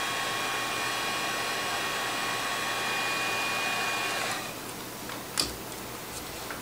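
Electric heat gun blowing steadily with a fan whine while it shrinks heat-shrink tubing over a wire splice. It switches off about four seconds in, followed by a sharp click and a fainter one near the end.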